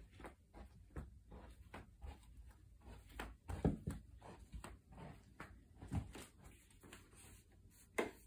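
Footsteps of a person walking through a house while carrying the phone, as quick, even steps at about three a second. A few louder knocks stand out, the sharpest near the end.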